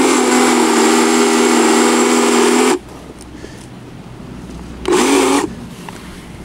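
Power saw cutting through brush: it runs at a steady pitch for about three seconds and cuts off sharply, then gives a short second burst about five seconds in.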